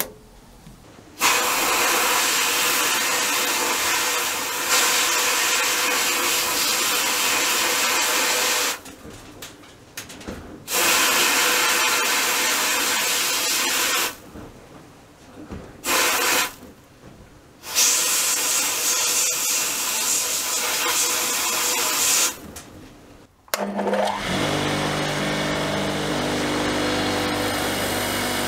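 Abrasive blast gun in a sandblasting cabinet blasting a spark plug: loud hissing in four long bursts of a few seconds each, with short pauses between. Near the end a bench grinder fitted with a wire wheel starts and runs steadily with a humming motor.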